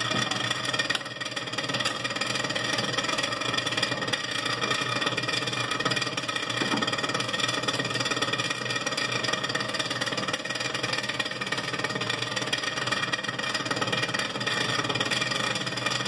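Freezer evaporator fan of a Continental duplex frost-free refrigerator running with a steady mechanical rattling noise, its blades scraping on ice built up around them. This is the sign of a failed defrost, which the owner traces to the control board not starting the defrost cycle.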